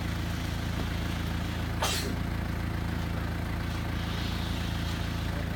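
A vehicle engine idling steadily, with a brief swish about two seconds in as a large plasterboard sheet slides across the stack.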